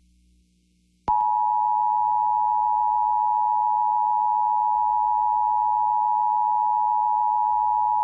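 Emergency Alert System attention signal: the two-tone EAS alarm, two pitches sounding together as one steady, harsh tone. It begins about a second in after a short silence and holds unbroken.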